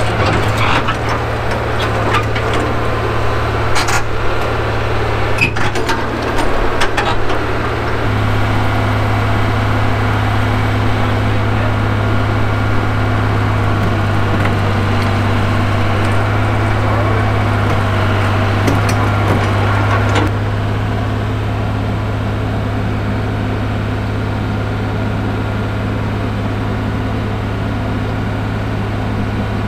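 The 1968 Atlas excavator's diesel engine running steadily, with a run of clanks and knocks in the first eight seconds. The engine note picks up about eight seconds in and eases back down around twenty seconds in.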